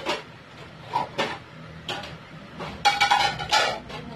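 Dishes and cutlery clattering as they are washed by hand in a sink: a few separate knocks about a second apart, then a busier run of clatters near the end, one with a brief ringing note.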